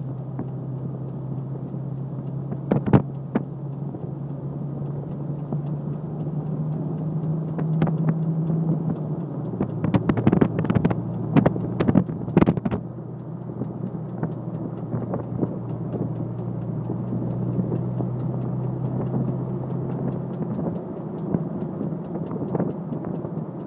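Jeep driving at speed with a steady low drone, over which sharp pops come at irregular intervals, clustered about ten to thirteen seconds in and again near the end, with wind noise on the microphone. The popping is a fault whose cause is unknown, which the owner finds worrying.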